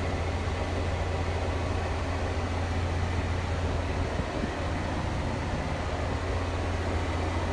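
Farm tractor engine running steadily under load while towing a full wagon of oats, a constant low drone that stays even throughout.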